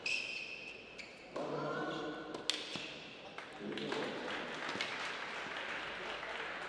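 Echoing ambience of an indoor tennis hall: indistinct voices and a couple of sharp ball impacts, one right at the start and one about two and a half seconds in.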